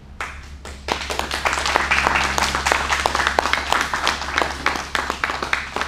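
A small group applauding, with many hands clapping unevenly. The clapping starts just after the opening, swells after about a second and thins out near the end.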